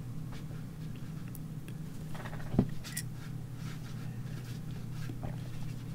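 Graphite pencil scratching lightly on drawing paper over a steady low hum, with one soft knock about two and a half seconds in.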